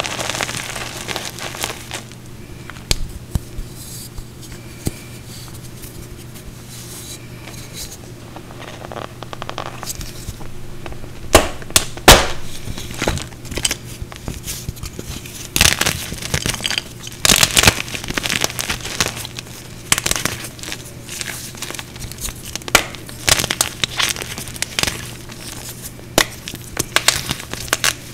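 Chalk blocks soaked in Mr. Clean, then dried, squeezed and broken by hand. Soft crumbling and gritty crunching for the first several seconds, then frequent sharp snaps and cracks as hard plate-like pieces break apart, the loudest about eleven seconds in and again around sixteen to eighteen seconds.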